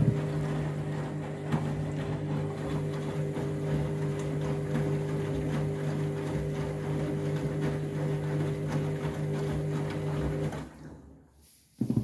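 Candy front-loading washing machine tumbling an overloaded drum of laundry in the final rinse: a steady motor hum with water sloshing and splashing against the door glass. The motor and drum stop about ten and a half seconds in, and a brief loud thump follows right at the end.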